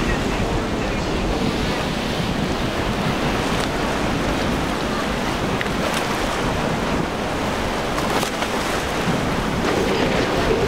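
Rushing water from a speeding center-console boat's wake and spray, with wind on the microphone. Near the end a steady outboard engine drone comes in.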